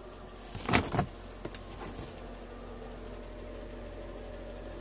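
Handling noise from a phone camera being moved and set in place: a rustling scrape with a couple of knocks about a second in, then a few light clicks, over a faint steady hum.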